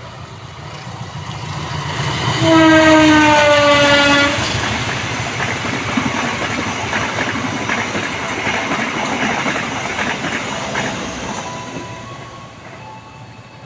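Diesel-electric locomotive horn sounding one blast of about two seconds as the train passes, the semboyan 35 warning signal; its pitch drops slightly partway through. The train's rumble and wheels clacking over rail joints follow and fade out near the end.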